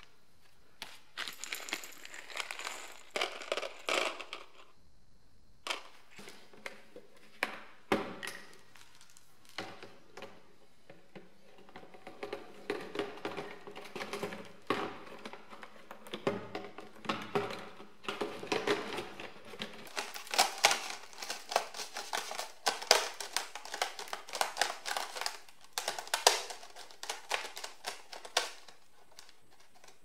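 Handling noises of plastic: black drip irrigation tubing being uncoiled and threaded through a PET bottle's cap. There is irregular rustling and crinkling of the bottle and tubing, with many small sharp clicks, busiest in the second half.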